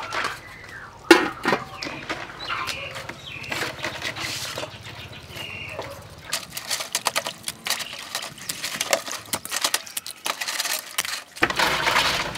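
Live rock crabs clicking and scraping against a stainless-steel bowl as they are scrubbed by hand, with a run of quick clinks in the second half. One loud metallic clank about a second in.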